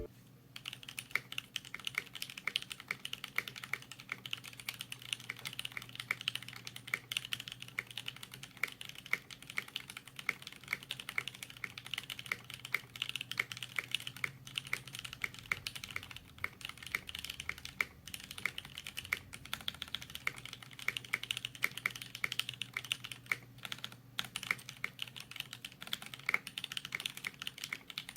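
Fast, continuous typing on a TheKey.Company Portico mechanical keyboard with stock C³Equalz x TKC Banana Split linear switches, lubed screw-in stabilizers and clear ABS keycaps: a dense stream of sharp keystroke clacks, with a few brief pauses.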